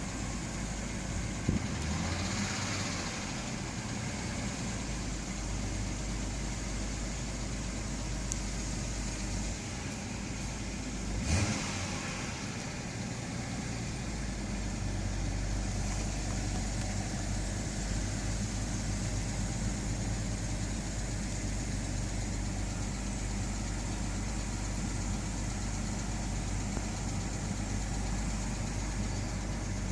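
BMW N52 inline-six engine idling steadily with the ticking of worn hydraulic lifters (valve adjusters) in the valvetrain. Two brief louder noises stand out, about a second and a half in and about eleven seconds in.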